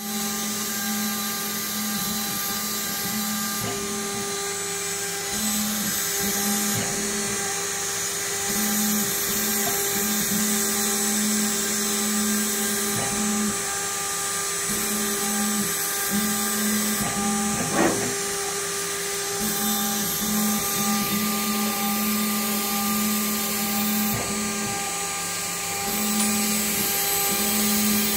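DIY CNC router spindle running with a steady high-pitched whine as its small bit cuts 3 mm balsa sheet. A lower hum from the machine cuts in and out in spells of a second or two as it moves, and there is one sharp tick about two-thirds of the way through.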